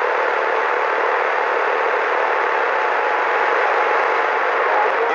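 Steady static hiss from a CB radio's speaker, with a faint steady whistle underneath.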